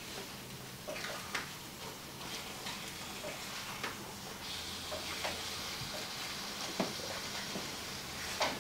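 Food sizzling in a frying pan, with scattered clicks and scrapes of a kitchen utensil. The sizzle gets louder about four and a half seconds in.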